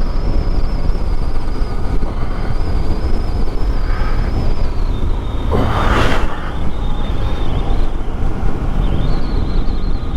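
Yamaha MT-07 parallel-twin motorcycle engine running while riding, under heavy wind rumble on the rider's microphone. A brief rush of noise swells and fades about six seconds in.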